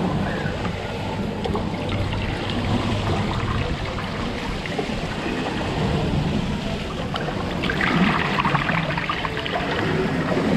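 Water running and trickling along a stainless-steel water-play trough, fed by a pipe spout. It grows splashier about eight seconds in as more water arrives.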